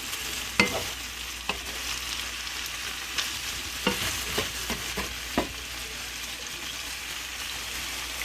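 Chicken and vegetables sizzling in a frying pan as they are stirred with a wooden spatula, which knocks and scrapes against the pan several times over the first five seconds or so; after that the sizzling carries on steadily.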